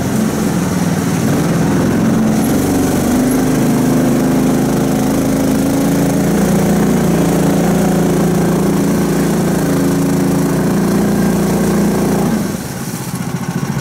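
Engine of a homemade karakat all-terrain vehicle running steadily, its pitch shifting a little now and then. It drops much quieter about twelve and a half seconds in.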